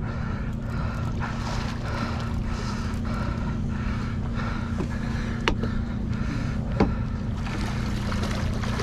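Boat engine running steadily, a constant low hum under wind and water noise, with two sharp clicks in the middle.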